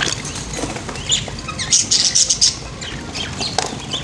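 Young helmeted guineafowl in a wire cage: a flurry of wing flapping a little under two seconds in, with short high chirps about a second in and again near the end.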